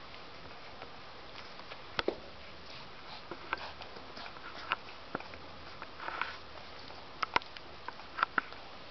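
Newborn puppies suckling at their mother's teats: irregular soft wet smacks, clicks and snuffling sniffs, with a cluster of sharper clicks near the end.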